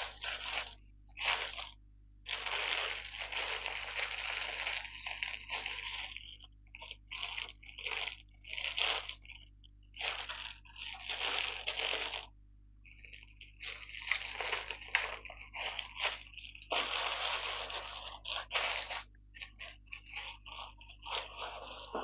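Packaging crinkling and rustling in irregular bursts of handling, some brief and some lasting a few seconds, as items from a parcel are unpacked by hand.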